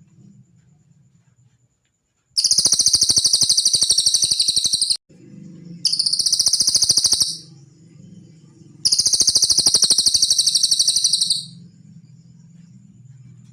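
Cililin bird song: three long, rapid, high-pitched trills, the second shorter than the other two, over a faint low hum.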